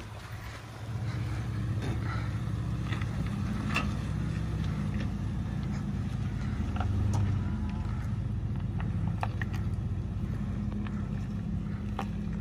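Toyota 4Runner engine working under load as the truck crawls up a sandy dirt mound. The engine note rises about a second in and swells briefly near the middle, with a few light ticks over it.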